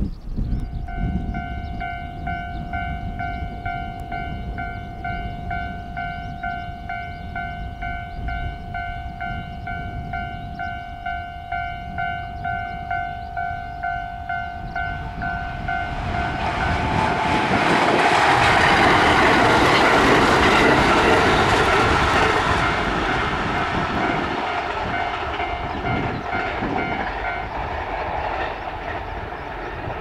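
Level-crossing warning alarm ringing its repeating electronic clang, then a JR West 521 series electric train passes, its rumble and wheel noise swelling to a peak about twenty seconds in and fading, with the crossing alarm still sounding faintly beneath it until near the end.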